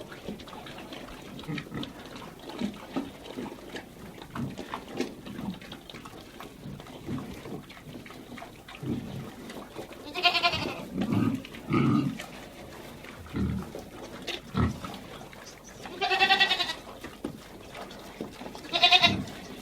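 Sheep bleating in a barn, three loud quavering bleats spread across the second half, among scattered short low pig grunts.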